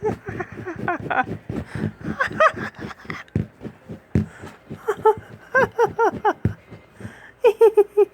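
A child giggling in four bursts of quick, pitched laughs.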